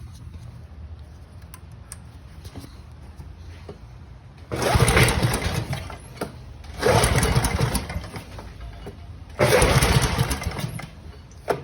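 Three hand pulls on the recoil starter of a large small-engine, each cranking it over for a second or so without it starting.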